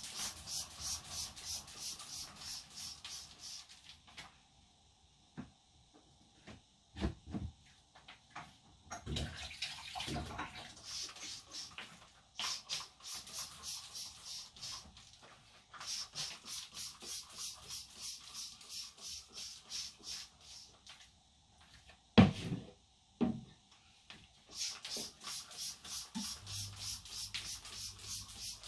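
Kitchen worktop being scrubbed with quick back-and-forth strokes, in runs of a few seconds with short pauses between them. Two loud knocks come about three-quarters of the way through.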